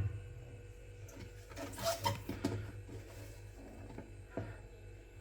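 Faint handling sounds from a washing machine's agitator being moved by hand: a few soft knocks and rubs, with a low steady hum underneath.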